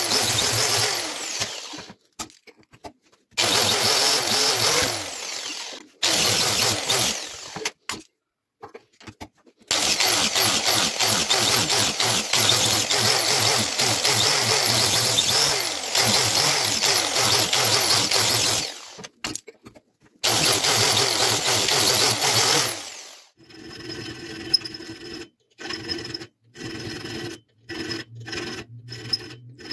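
Power tool with a sanding disc running against a spring-steel knife blade, in several loud bursts of a few seconds with short gaps between them. Near the end, a quieter, choppy rubbing takes over.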